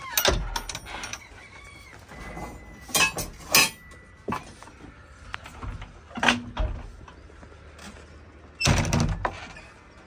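Knocks and thuds on a JCB 3DX backhoe loader's cab as the operator climbs in, sits down and handles the cab door: a cluster of knocks at the start, two sharp ones about three seconds in, another about six seconds in, and the heaviest thump near the end.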